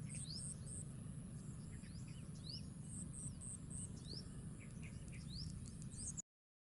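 Mangrove wetland ambience: insects keep up a steady high-pitched trill with groups of pulsing chirps, while birds call with short, repeated upward-sweeping notes over a low background rumble. The sound cuts off abruptly about six seconds in.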